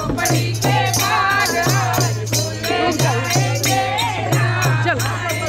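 A group singing a Hindu devotional chant to a dholak hand drum and jingling manjira, small brass hand cymbals, struck in a steady beat.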